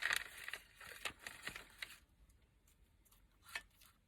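Paper rustling and crinkling with light taps as small paper craft pieces are handled, for about two seconds, then only a few faint clicks.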